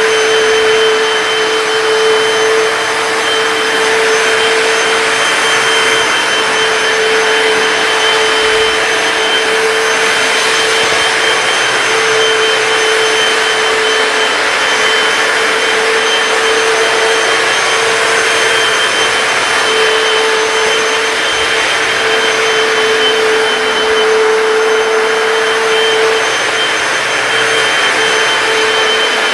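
Hoover PowerDash wet hard floor cleaner running steadily as it scrubs a dirty tile floor, its motor giving an even whine with a steady mid-pitched tone.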